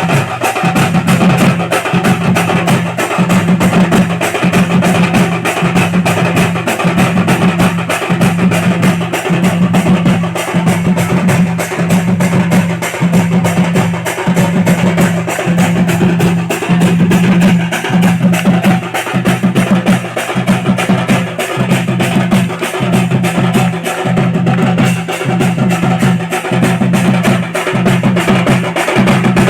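Loud percussion-driven music with a fast, steady beat over a low bass line that pulses about once a second.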